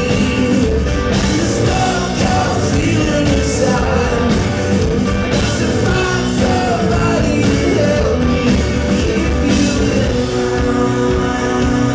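A rock band playing live, with electric guitar, bass guitar and drums, loud and steady throughout.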